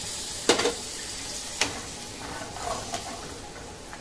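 Sizzling and hissing in a pan of hot ghee with tomato and tempering spices, just doused with a glass of water, the sizzle slowly dying down. Two sharp knocks of the stirring spoon on the pan, about half a second and a second and a half in.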